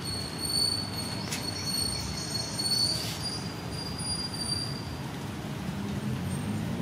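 A steady high-pitched squeal, held for about five seconds before fading, over a low background rumble, with a couple of faint clicks.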